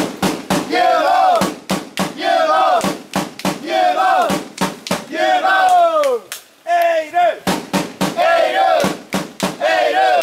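Football supporters chanting together in unison, backed by steady drum beats, with a short break in the chant a little after six seconds in.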